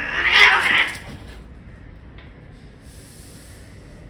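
Domestic cat hissing: one loud, harsh hiss in the first second that cuts off a growl, a defensive threat at another cat.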